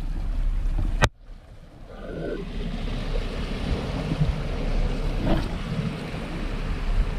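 Sea waves washing over shoreline rocks, with wind buffeting the microphone. About a second in there is a sharp click, and the sound drops out almost completely for under a second before the surf and wind come back.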